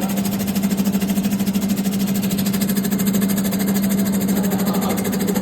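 Electric shallot and lemongrass slicing machine running steadily: a motor hum with a rapid, even mechanical pulsing.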